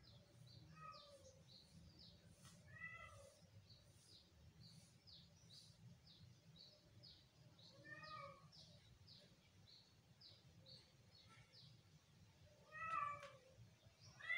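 Kitten meowing in short calls about five times, the loudest about thirteen seconds in and another right at the end. A faint run of quick high chirps goes on behind.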